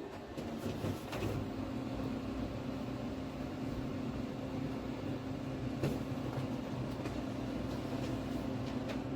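Steady mechanical hum of a running motor or pump, with a low droning tone that comes up about a second in, and a few faint clicks.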